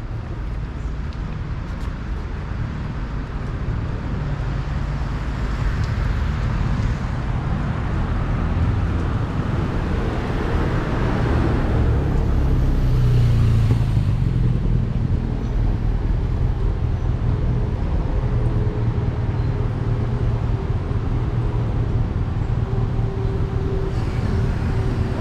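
Street traffic on a town road, with cars driving past. One car passes close about halfway through, the loudest moment.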